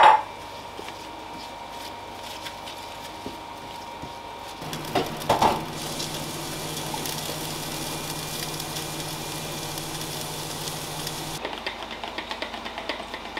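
Opens with a clatter of a spatula against a frying pan, with grated carrots and onions sizzling quietly. About five seconds in comes a knock, then an oven's fan runs with a steady hum and hiss, cutting off about eleven seconds in. Near the end a spoon clinks quickly in a plastic measuring jug, about five clinks a second.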